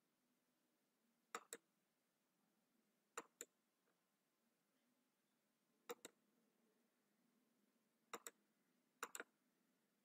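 Faint computer mouse clicks, mostly in quick pairs like double-clicks, five times over the stretch, with a quick triple click near the end.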